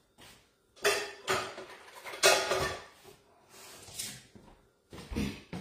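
Metal utensils clattering and a kitchen drawer being handled while a spoon is fetched: a string of separate knocks and rattles, the loudest about two seconds in.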